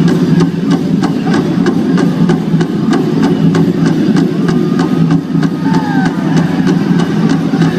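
Powwow drum group performing a Chicken Dance song: the big drum beaten in a steady, rapid rhythm of about four strikes a second, under the group's singing.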